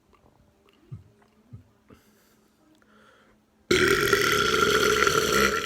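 A few faint clicks, then a man lets out one long, loud burp starting a little past halfway through, forced up from air he has swallowed on purpose.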